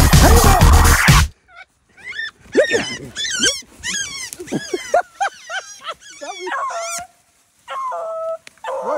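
Music that cuts off suddenly about a second in, then hunting hounds whining and yelping in many short, high, falling cries. Near the end one hound gives a held howl, and the louder cries pick up again.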